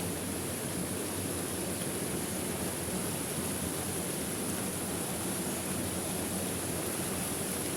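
A waterfall: a steady, even rush of falling water, with a thin, high, steady hiss above it.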